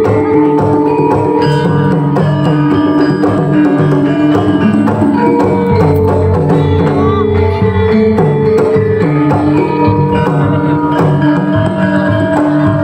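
Javanese gamelan playing dance music: metallophones ring out sustained pitched notes over a steady pattern of hand drums.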